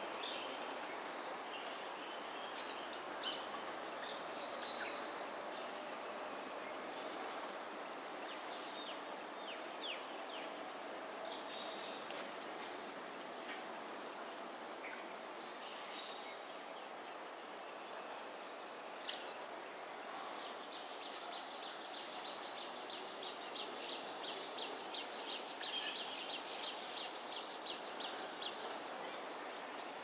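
Insects calling steadily in several high, unbroken tones over a broad background hum. About two-thirds of the way in, a rapid ticking series joins for several seconds, with a few short bird chirps scattered throughout.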